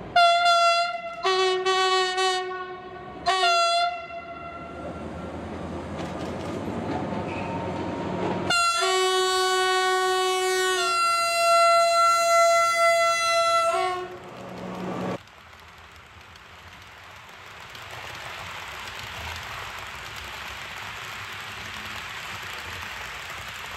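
Train horn sounding three short blasts, then after some running rumble a long blast that changes pitch partway through. A quieter steady running noise follows.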